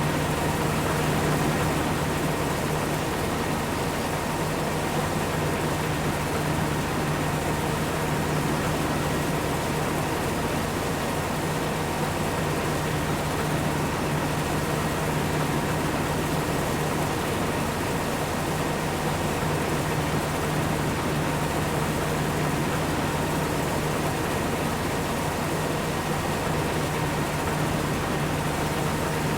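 Heavy farm machinery engine running steadily, a constant drone with a low hum and a faint high whine, unchanging throughout.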